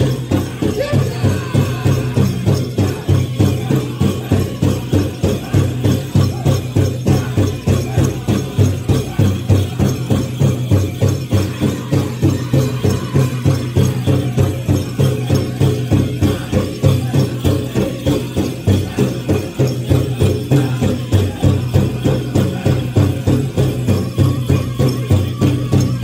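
Powwow drum group singing a Prairie Chicken dance song over a large drum struck in a steady beat, with the jingle of dancers' bells.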